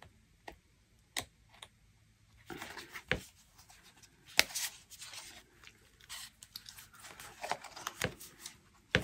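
Photo prints and paper being shuffled and handled by hand: a few light taps at first, then irregular rustling and crisp clicks from about two and a half seconds in, the sharpest a little after four seconds.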